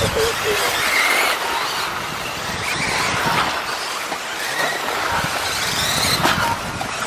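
1/10-scale electric 4WD off-road RC buggies with 13.5-turn stock brushless motors racing around the track. Their motors whine in short rises and falls as the cars accelerate and brake, with a few sharp knocks over a noisy background.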